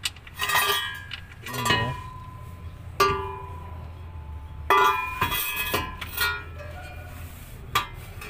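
Metal tools and steel underbody parts clinking: a series of sharp metallic strikes, several ringing briefly after the hit.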